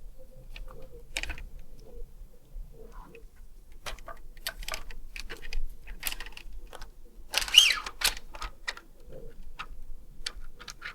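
Clicks and rattles of a 3D-printed plastic Carcano M91 carbine replica's mechanism being worked by hand, with one longer, louder scraping slide a little past the middle.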